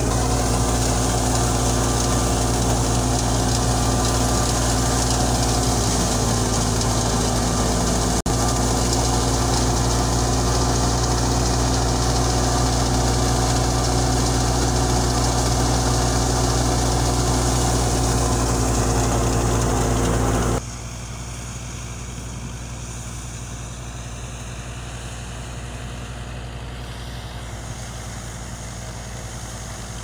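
Tractor-driven wheat thresher running at full work: a loud, steady engine-and-drum drone. About two-thirds of the way in it drops suddenly to a quieter, steady machine hum.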